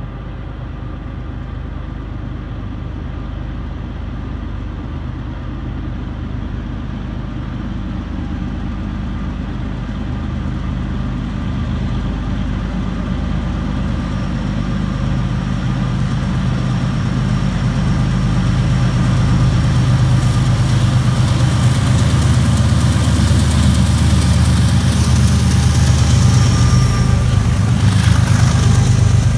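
Diesel freight locomotive approaching, its engine a low steady drone that grows steadily louder, loudest as it passes close by near the end.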